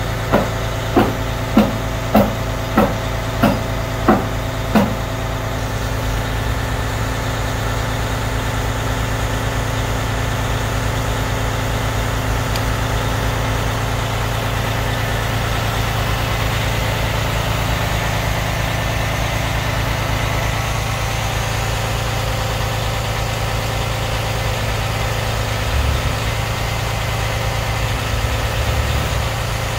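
Heli 5000 lb pneumatic-tyre forklift's engine running steadily as it drives out of a box truck. A warning beeper sounds about nine times, evenly spaced, during the first five seconds.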